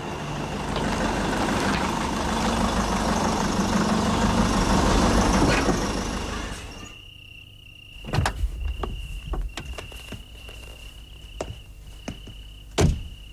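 A Mercedes-Benz E-Class sedan's engine running as the car pulls in and stops, then cut off about six and a half seconds in. Crickets chirp steadily after that, with a few sharp clicks as the driver's door opens, and the car door slams shut near the end.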